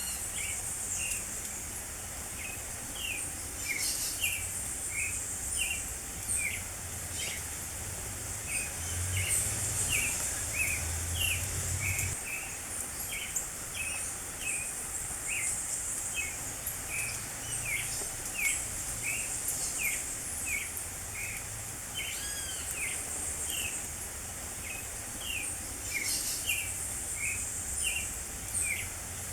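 Creamy-bellied thrush (sabiá-poca) singing: a long series of short, clear whistled notes, one or two a second, with thin high-pitched chirping and a low rumble in the background.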